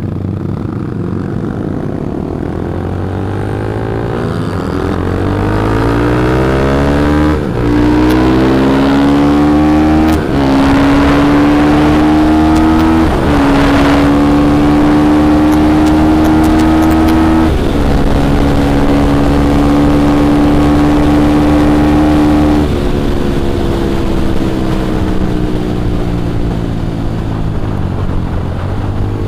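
Motorcycle engine pulling away and shifting up through the gears: its pitch climbs, with a brief dip at each of about four shifts, then holds steady while cruising. Near the end the throttle eases off and the pitch falls.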